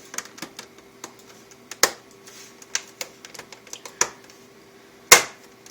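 Plastic clips of an Acer H233H monitor's front case snapping into place as the case is pressed together: scattered sharp plastic clicks, the loudest a little after five seconds in, over a faint steady hum.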